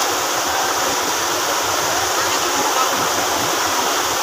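Rocky mountain stream rushing over boulders through rapids and a small cascade: a steady, even rush of water.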